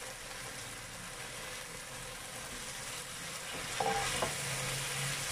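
Broccoli and sliced marinated meat sizzling in a nonstick frying pan as they are stir-fried with a wooden spatula, the sizzle growing a little louder past the middle. About four seconds in there is a brief clatter of the spatula against the pan.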